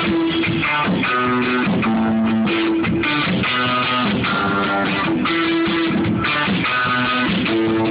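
A band playing live at rehearsal: guitar-led music with held, strummed chords that change every second or so.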